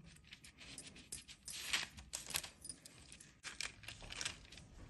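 Faint, scattered clicks and scrapes of a kitchen knife cutting a thin sheet of kaju barfi on butter paper, the blade ticking against the board beneath, with the paper crinkling as pieces are pulled apart.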